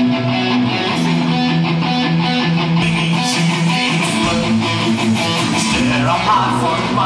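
Rock band music led by electric guitar, with a moving bass line and drums.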